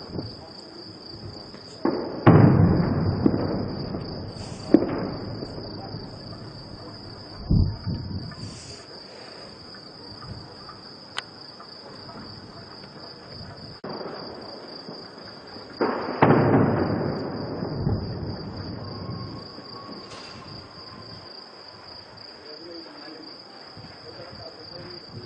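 Distant heavy gunfire booming and echoing across a town at night: two loud reports, about two seconds in and again about sixteen seconds in, each rumbling away over a few seconds, with a few smaller reports between them. Crickets chirp steadily throughout.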